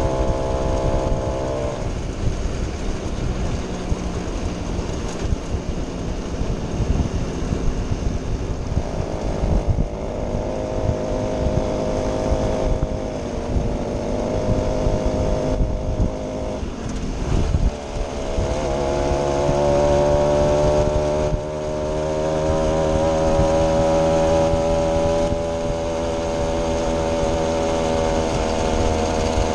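Vintage moped's small two-stroke engine running under way. Its pitch drops a couple of seconds in and again about 17 seconds in, then climbs steadily as the moped picks up speed.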